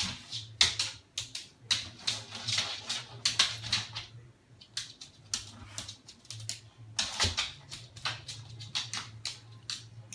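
A Labrador's claws clicking and scrabbling on a laminate wood floor as it bounds about in play, in several quick flurries of taps, with a low steady hum underneath.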